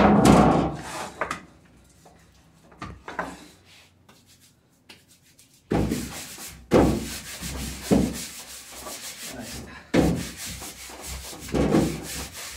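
Hands rolling and working sweet-bread dough on a wooden worktable, a series of rubbing strokes about a second apart. The strokes come loudest in the first second and again from about six seconds in, with a quieter pause between.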